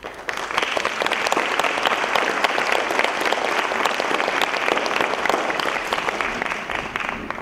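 Theatre audience applauding: many people clapping, starting at once, holding steady, then dying down near the end.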